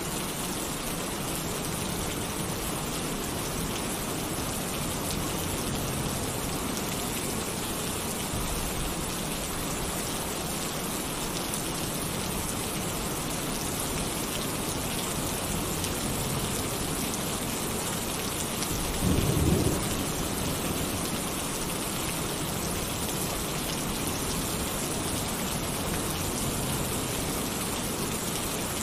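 Heavy rain falling steadily on a tin roof. A short, low rumble of thunder rises out of it about two-thirds of the way through.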